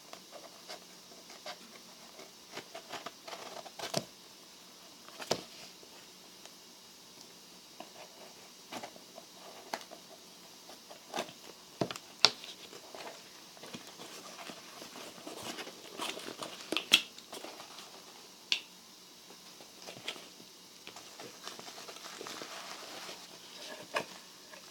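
Irregular small clicks, taps and crinkling rustles of objects being handled at close range, with a few sharper knocks about 4, 5, 12 and 17 seconds in.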